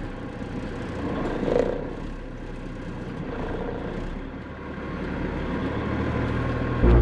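Dump truck's diesel engine running steadily at low speed while reversing up to an asphalt paver, with a brief louder noise about a second and a half in.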